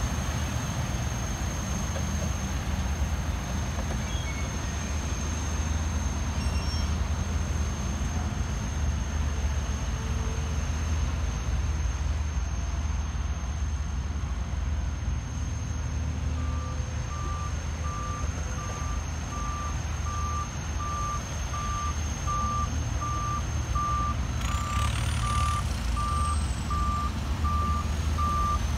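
Diesel engines of heavy earthmoving machinery, a tipper dump truck and excavators, running with a steady low rumble. About halfway through, a reversing alarm starts beeping at an even pace, and a short hiss comes in near the end.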